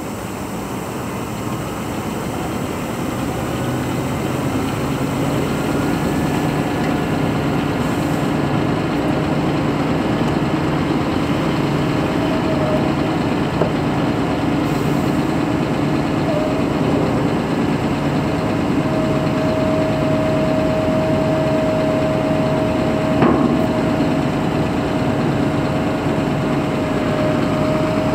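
Scania P420LB sludge vacuum truck running at a standstill, its engine and hydraulics working as the rear tank door is raised: a steady hum that builds over the first few seconds, with a thin whine over it. One sharp knock comes near the end.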